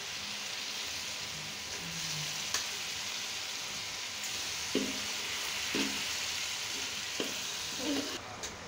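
Boiled white chickpeas hitting hot onion-tomato masala and oil in a wok, sizzling steadily as they are spooned in and stirred. Several light knocks of a steel spoon against the pan and bowl come in the second half.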